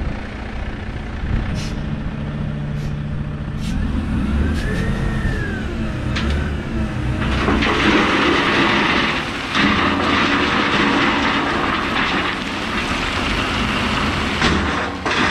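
Dump truck's diesel engine running as the body tips, then from about seven seconds in a load of crushed gravel, pieces up to 4 inches, pours out of the tailgate in a steady rushing rattle of stone that becomes the loudest sound.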